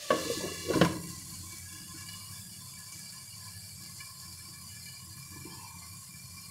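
Glass pan lid set down on a nonstick frying pan with a couple of knocks in the first second, the second louder. Then a steady sizzling hiss of peas and beans steaming under the covered lid.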